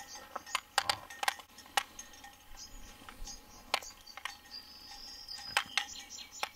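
Small birds chirping, with short high notes repeating and one brief held whistle about four to five seconds in, over a scattering of sharp clicks and knocks.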